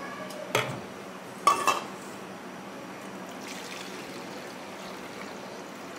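Soaking water poured off a steel pot of soaked dal into a steel bowl, a thin splashing stream. There are two short clinks of the steel vessels, about half a second and a second and a half in.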